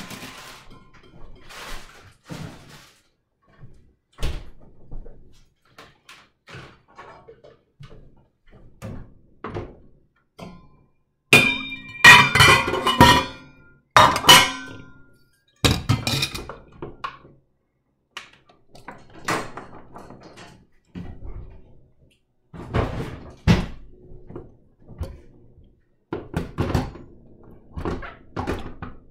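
Hard kitchen items being handled at a stainless steel sink: scattered knocks and thunks, with a loud clatter of objects ringing against each other and the sink about halfway through.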